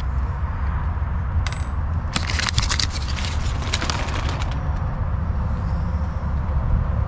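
Paper instruction card crinkling and crackling as it is handled around a red prop washer: a short crackle about a second and a half in, then a dense run of crackles until about four and a half seconds in, over a steady low rumble.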